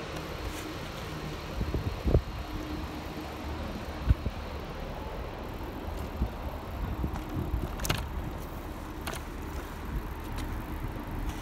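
A bicycle rolling over city paving: a steady low rumble of the ride with the rattle of the bike and its front basket, and a few sharp knocks, the loudest about 2 and 4 seconds in.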